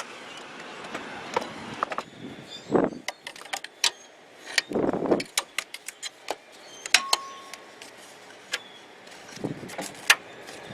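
Hand tools working the engine mount nuts: a run of irregular sharp metallic clicks and clinks, with one short ringing clink about 7 s in. A few brief scraping or rustling bursts come in between.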